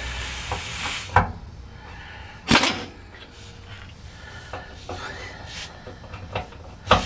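Pneumatic impact wrench loosening the driveshaft carrier bearing strap bolts: a hiss of air stops about a second in, then come a few short separate bursts and clanks of the tool on the bolts, the loudest about two and a half seconds in and again near the end.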